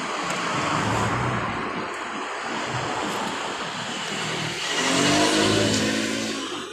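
Motor vehicle engine running nearby over a steady traffic din, growing louder and higher in pitch about five seconds in as it revs past.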